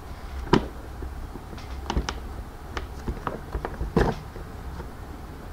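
Plastic housing of a Philips PerfectCare Aqua steam generator's base station clicking and creaking as its top shell is pried off the base, with several sharp clicks spread irregularly through.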